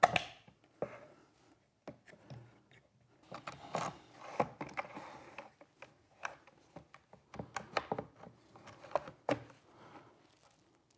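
Wooden small-parts tray being slid onto a table saw sled and fitted into place by hand: irregular knocks and clicks of wood on wood, with a stretch of scraping a few seconds in.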